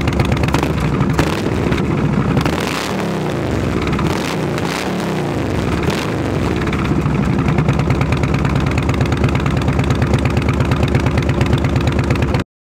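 2013 Harley-Davidson Street Glide's V-twin idling with a pulsing beat through its chrome exhaust. It is revved twice about three seconds in, settles back to idle, and the sound cuts off suddenly near the end.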